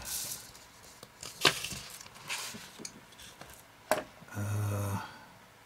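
Light knocks and handling noises, with two sharper clicks about a second and a half and about four seconds in, followed by a brief low hum near the end.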